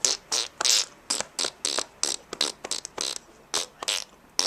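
A person making a quick, irregular string of short mouth noises (clicks, pops and hisses made with the lips and tongue), like improvised beatboxing.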